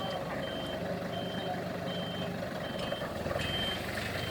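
A vehicle's reversing alarm beeping steadily: about six short, high beeps, evenly spaced a little under a second apart, over the low, steady running of its engine.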